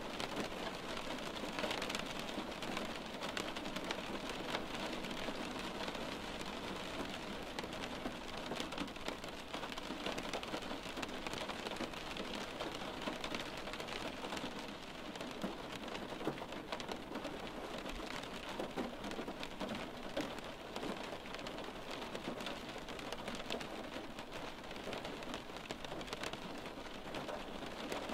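Steady rain on a window pane: a dense, even hiss of many small drops tapping the glass, with no change in strength.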